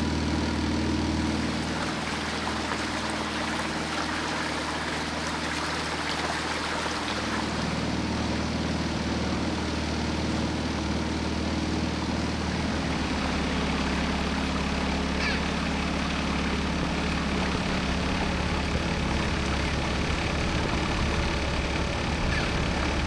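The engine of a Microplus 600 cabin cruiser running steadily as the boat cruises along a canal, a constant low hum with a wash of water and air noise over it.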